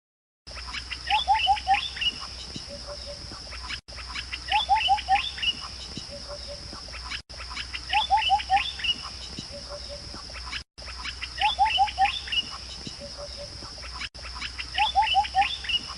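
Birdsong on a short recording loop: about every three and a half seconds the same phrase repeats, four quick rising notes followed by higher chirps and a few short low notes, with a brief dropout between repeats. A steady high buzz runs underneath.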